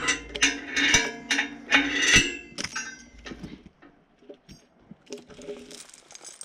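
A run of sharp metallic clanks and rattles with a ringing edge, about two a second over the first two seconds, then softer scuffs and rustling on the leaf-littered ground.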